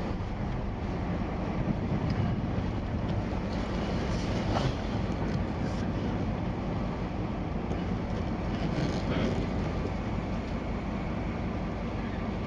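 Converted U-Haul box truck's engine running steadily at low speed while the truck is being backed up, heard from inside the cab.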